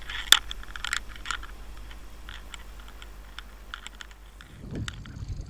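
Irregular sharp clicks and ticks picked up by an underwater camera lying on the seabed, thickest in the first second or so and thinning out after, over a faint low hum.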